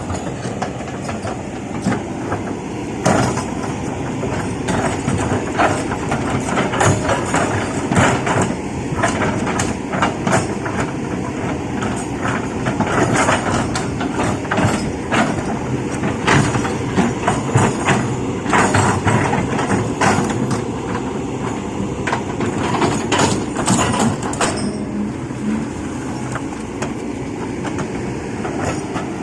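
Excavator's diesel engine running steadily while working, with many irregular clanks and knocks of stones and the steel bucket.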